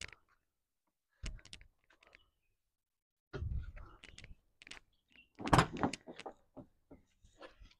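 Irregular knocks, thuds and rattles of work on a stripped-out car interior, the loudest cluster about five and a half seconds in.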